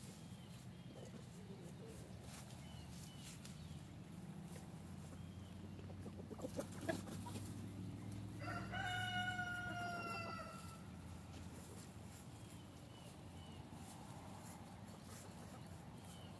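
A rooster crows once, about halfway through: a single call of about two seconds, gently falling in pitch. A few sharp clicks come shortly before it, and faint short chirps are heard now and then.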